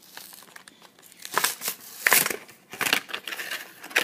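Hot Wheels blister pack being opened by hand: plastic and card crinkling and tearing in several short bursts, loudest about two seconds in.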